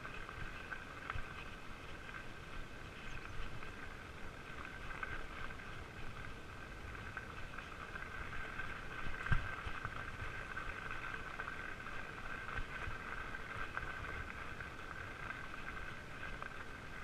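Fat bike rolling along a gravel path: an uneven low rumble of the tyres and frame over the rough surface, with a steady hum above it, and one sharper jolt about nine seconds in.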